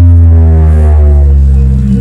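Bass-heavy electronic music played loud through subwoofers driven by a D900 mini amplifier for a bass test: a long held deep bass note with higher tones gliding down over it.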